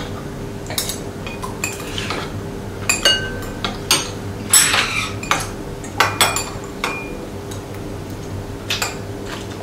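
Metal chopsticks and spoons clinking against ceramic bowls and plates as people eat, in scattered, irregular clicks about once or twice a second. A faint steady hum runs underneath.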